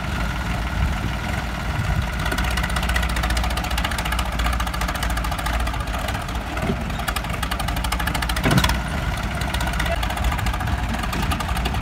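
Diesel tractor engines of a New Holland 3630 and a Sonalika 750 running hard under heavy load in a tug-of-war. A sharp thud stands out about eight and a half seconds in.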